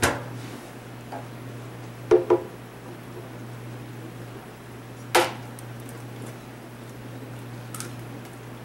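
Eggs being cracked for mayonnaise: a quick double knock about two seconds in and a single sharp knock about three seconds later, the shells struck hard against an edge, over a steady low hum.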